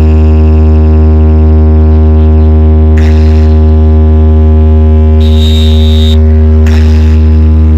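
A loud, steady, deep bass drone with overtones from a DJ sound system's speakers during a sound check, held at one pitch. Short hissy bursts cut in over it a few times, one with a thin high whistle about five seconds in.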